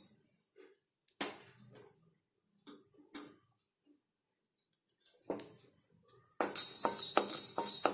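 Coriander seeds going into a dry kadai, with a few separate clinks and knocks of the spoon against the pan. About six seconds in, a spatula starts stirring the seeds around the hot pan in a continuous scratchy rattle.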